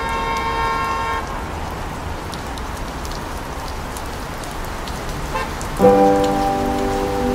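Steady rain falling, with scattered drops ticking. A held tone with several overtones cuts off about a second in, and music with sustained notes comes in near the end.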